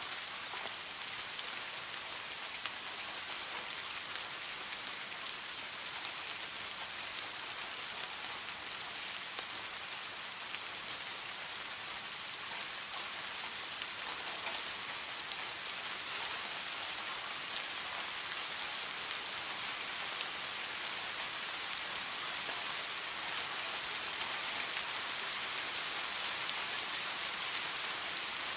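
Steady rain falling: a dense, even hiss of many drops, with single drop ticks standing out here and there, growing slightly louder near the end.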